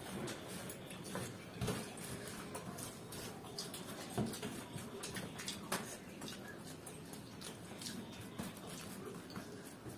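Quiet eating sounds: noodles being chewed, and fingers picking them up off a paper sheet. They make an irregular patter of small clicks and rustles, a few of them a little louder.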